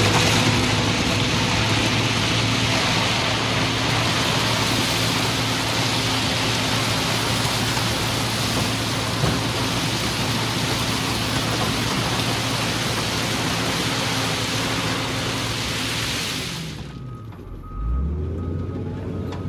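Motor grader's diesel engine running steadily under load, with a steady rushing hiss over it. Near the end the engine drops off briefly and then revs back up, with a faint repeated beeping during the dip.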